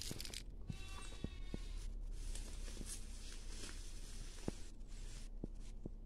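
Footsteps and rustling through tall grass and brush, with scattered short clicks.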